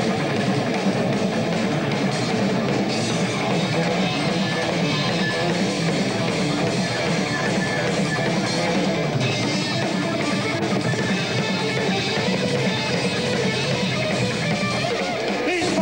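Rock band playing loud and steady: electric guitar, bass guitar and drum kit.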